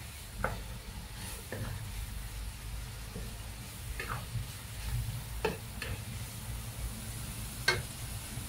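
Minced meat and garlic sizzling in a frying pan while a utensil stirs them, with about six short scrapes of the utensil against the pan. The loudest scrape comes near the end.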